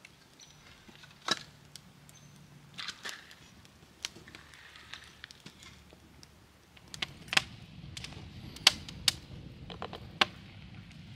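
Split firewood being set into a steel fire ring, with a sharp knock about a second in and a few lighter knocks of wood on wood. From about two-thirds of the way through, a wood fire crackles with several sharp pops over a steady low rumble.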